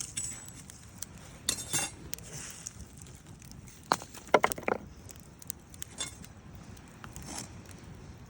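Light clinking and clattering of small hard objects, loudest in a quick cluster of sharp clinks about four seconds in.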